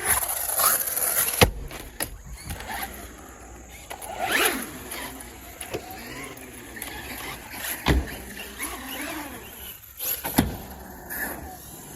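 Electric radio-controlled monster trucks with their motors whining, the pitch gliding up and down as they rev. There are a few sharp hard thuds as the trucks land on concrete, the loudest about a second and a half in.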